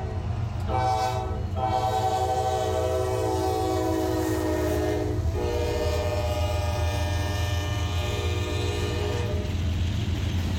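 CSX freight train's locomotive horn, a chord of several notes, sounding in separate blasts: a short one about a second in, then two long ones, the last stopping shortly before the end. Under it runs the steady low rumble of the diesel locomotive passing about halfway through, followed by the freight cars rolling by.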